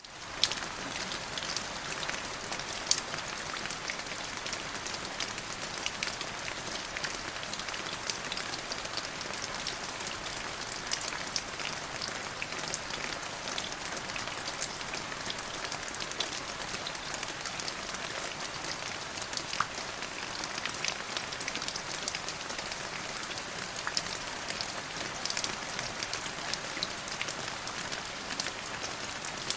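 Steady rain falling: a continuous hiss dotted with many small, sharp drop hits.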